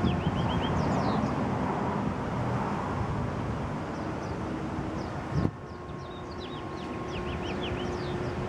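Steady low outdoor rumble with quick runs of high, down-slurred bird chirps near the start and again about six seconds in. A single thump about five and a half seconds in, after which the rumble drops a little.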